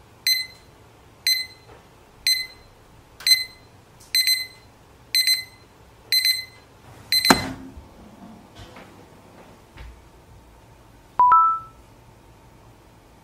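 Digital alarm clock beeping about once a second, stopped by a sharp knock about seven seconds in. Near the end a short two-note chime steps up in pitch: a game-style notification sound for a new task.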